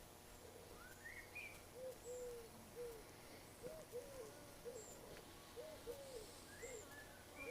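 A pigeon cooing faintly in a repeated series of short low notes, with a small bird giving a few higher rising chirps about a second in and again near the end.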